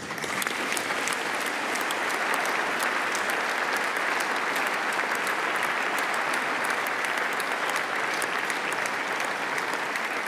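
Large audience of parliamentarians and gallery visitors applauding: dense hand-clapping that starts suddenly and holds steady throughout.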